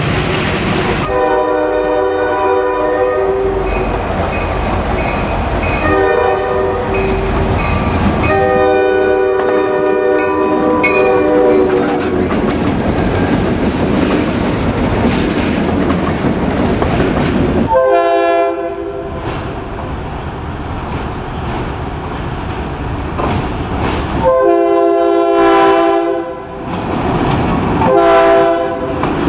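Diesel locomotives passing close by, sounding their air horns in a series of blasts, with engine and wheel rumble from the passing train in between. The horns come in short and long blasts, several of them in a row near the start and again in the last few seconds.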